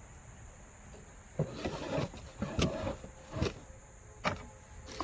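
A small electric motor whirring in a few short spells, with sharp clicks in between.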